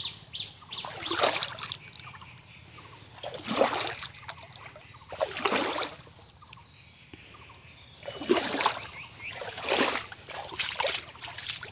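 Feet wading through shallow, muddy floodwater in a drainage channel, with a splash at each slow step. There are five or six splashing steps, a second or two apart.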